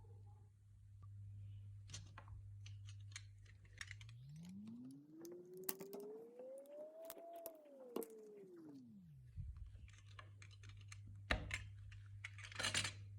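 Scattered light clicks and taps of small parts being handled, over a steady low hum. Between about four and nine seconds in, the hum is replaced by a smooth tone that rises in pitch and then falls back, and a few louder clicks come near the end.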